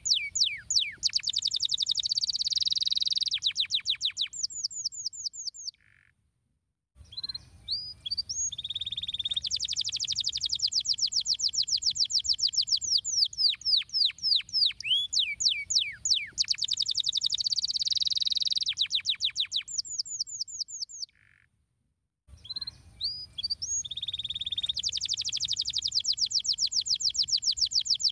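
Domestic canary singing long rolling phrases of rapid repeated notes and trills, with high whistled sweeps between them. The song breaks off twice, about six and twenty-one seconds in, then starts again.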